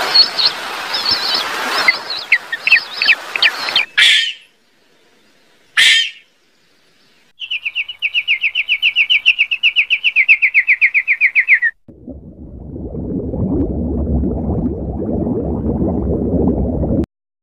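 A run of separate animal sounds. First comes a series of high chirps over a hiss, then two short calls. Then a rapid, even trill of about seven chirps a second falls slightly in pitch, and last a low rushing rumble cuts off suddenly.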